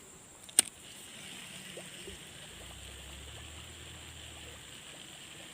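A single sharp click about half a second in, then a steady soft whirring rush from a baitcasting fishing reel as the line is cast and wound in.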